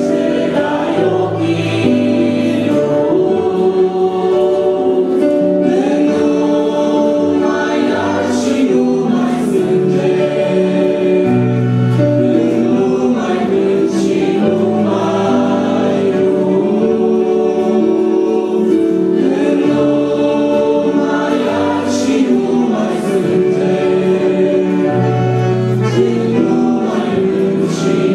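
A woman and a man singing a Romanian Christian song as a duet, accompanied by an electric keyboard playing sustained chords and bass notes.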